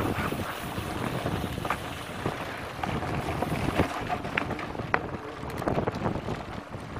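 Wind buffeting the microphone of a camera mounted on a mountain bike riding down a dirt trail, with frequent short knocks and rattles as the bike goes over bumps.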